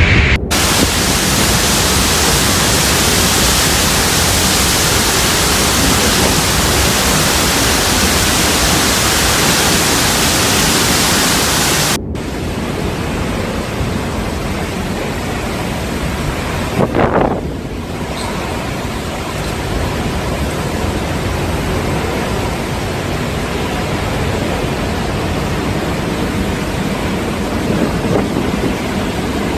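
Torrential rain pouring down in a steady, dense hiss, with wind on the microphone. The sound breaks off abruptly about half a second in and again about twelve seconds in, then goes on quieter and duller.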